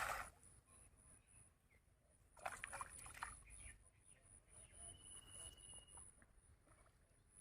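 Near silence: faint outdoor pond-side ambience with a steady high whine, a brief cluster of faint rustling noises about two and a half seconds in, and a short high pulsing trill near the middle.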